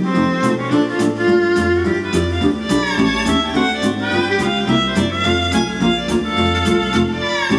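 Instrumental background music: a melody over a steady beat of about two beats a second.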